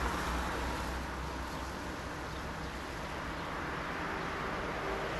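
Steady low rumble with a hiss of background noise, no distinct events.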